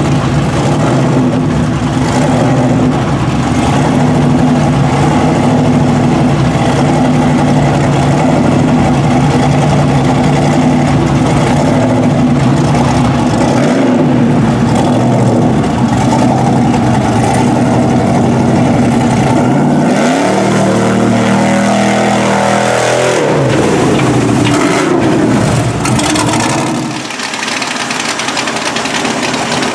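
Engine of a lifted Chevrolet pickup running steadily as it wades through deep water, then revving up and falling back about twenty seconds in. Near the end it gives way to the quieter engine of a second lifted truck.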